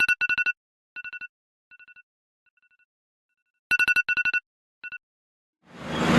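Electronic telephone ring: a fast trill of pulses at a fixed pitch, sounding twice, each time followed by fainter repeats that die away like an echo. A rush of noise swells up near the end.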